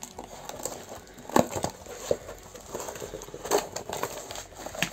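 Toy packaging being handled and opened: crinkling and rustling, with three sharp clicks, about a second and a half in, about three and a half seconds in, and near the end.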